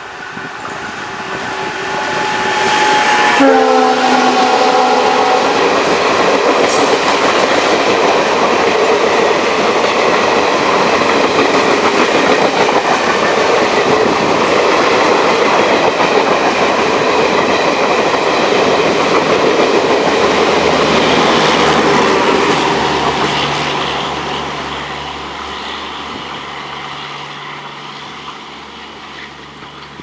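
WDM-3D diesel locomotive's multi-tone horn, an EMD-like honk, sounding as the locomotive approaches at speed. Its chord drops in pitch as it passes about three seconds in, and it stops a couple of seconds later. The express's coaches then rush past with clickety-clack over the rail joints for about twenty seconds before fading away.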